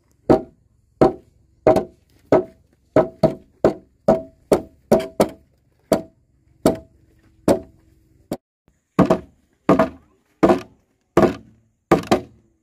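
Hammer blows on timber during construction: about twenty sharp strikes, roughly one or two a second, each with a short ringing tone, with a brief lull about eight seconds in.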